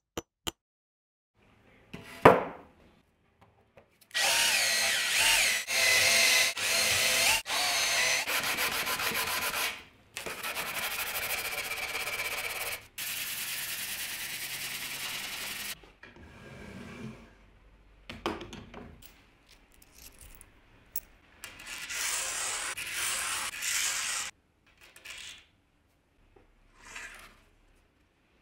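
Workshop sounds cut together with abrupt starts and stops: a sharp knock about two seconds in, a power tool running for several seconds with a wavering whine, then steady rubbing as a board is hand-sanded with a sanding sponge. Scattered handling noises follow.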